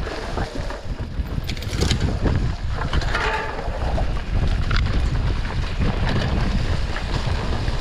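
Mountain bike descending dirt singletrack: wind buffeting the microphone with a steady low rumble, over tyre noise on the trail and scattered clicks and rattles from the bike on bumps.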